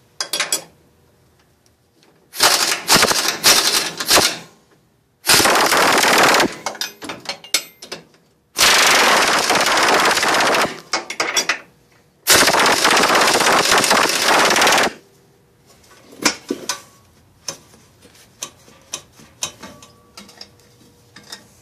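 Impact wrench hammering in five bursts, the longer ones about three seconds, while working the nut on the truck's rear leaf-spring shackle hanger. After about fifteen seconds it stops, and light metal clicks and clinks follow.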